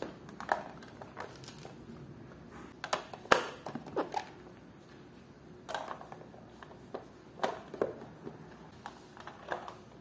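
Plastic lids being set onto and pressed down on plastic food storage containers: a dozen or so sharp, scattered clicks and taps of plastic on plastic.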